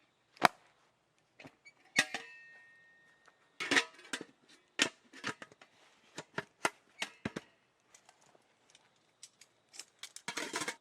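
A series of sharp clicks and knocks from objects being handled, one with a short metallic ring about two seconds in, and a quick cluster of them near the end.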